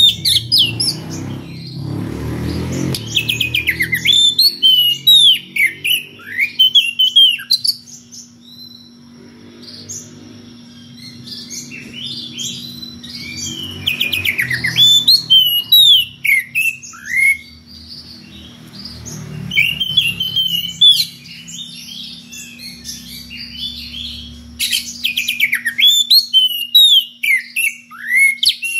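Oriental magpie-robin (kacer) singing loudly in full song, runs of quick sweeping whistled notes in several bursts with short pauses between. This is a rival-challenging song. A steady low hum comes in about ten seconds in.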